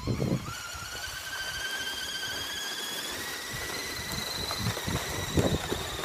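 Electric motor and gear whine of a remote-control truck pulling a loaded sled over snow, rising slowly in pitch as it speeds up. A few short low thuds stand out, the loudest near the start and about five seconds in.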